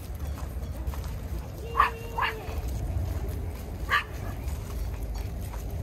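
A dog barking three times, with two quick barks about two seconds in and one more near four seconds.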